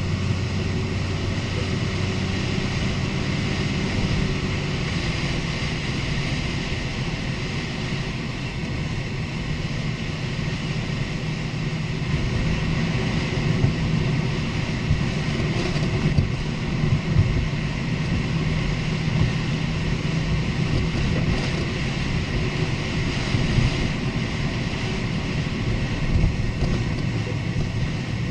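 Lexus IS250 (GSE20) driving, with steady engine and road noise, and in the second half several sharp knocks and rattles from the suspension over bumps. The owner suspects the stabilizer links, with coilovers or upper arms also possible.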